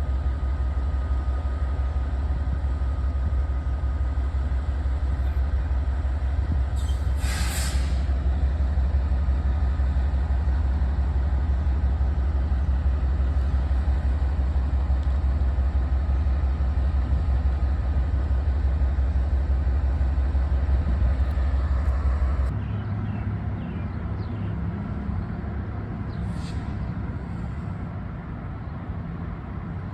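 Steady low rumble of a moving vehicle, with a sharp hiss lasting about a second some seven seconds in. About 22 seconds in the deep rumble drops off suddenly and the sound goes quieter.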